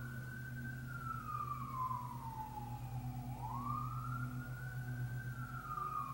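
A siren wailing, its pitch rising and falling slowly through about two cycles, over a steady low hum.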